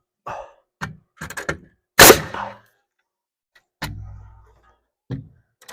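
A string of knocks and bangs from handling wall framing: a few short knocks, then one loud sharp bang with a brief ring about two seconds in, a duller thud with a short low hum near four seconds, and a last small knock.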